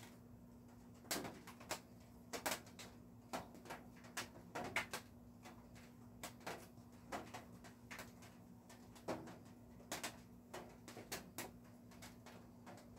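Irregular light clicks and taps, about twenty of them, over a steady low hum.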